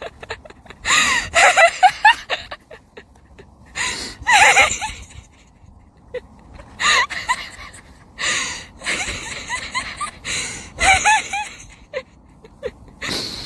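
A person laughing hard in wheezing, breathless bursts with gasps, in groups about a second long with short pauses between.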